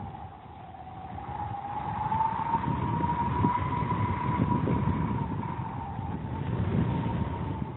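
Soundtrack sound effect: a high whistling tone that slowly rises and then falls, over a low rumble that swells and fades.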